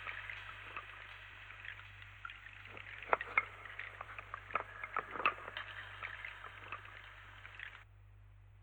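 Faint crackling with scattered sharp clicks over a steady hiss, like a record's surface noise, in the song's fade-out. It cuts off suddenly near the end.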